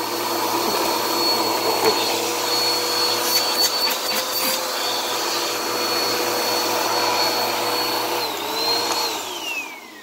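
Upright vacuum cleaner running steadily with a high-pitched motor whine; near the end its pitch dips once and recovers, then the motor is switched off and winds down with a falling whine.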